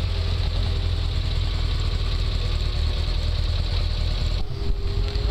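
NSU Prinz 1000's rear-mounted air-cooled four-cylinder engine running steadily as the small car drives past.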